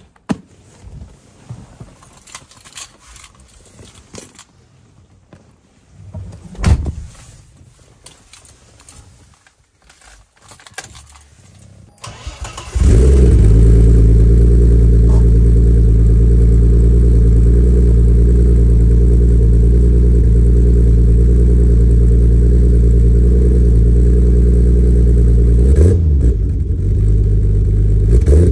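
Turbocharged M20 straight-six of a 1991 BMW 325iX E30 starting about twelve seconds in and then idling steadily, heard at its dual exhaust tips, with a short rise in revs near the end. Before it, quiet footsteps, clicks and knocks, with one louder thump about seven seconds in.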